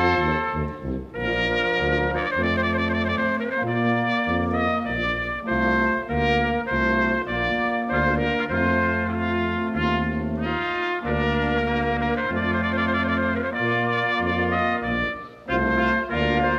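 Brass ensemble playing a slow, stately processional in held chords that change about once a second, as the ceremony's procession enters.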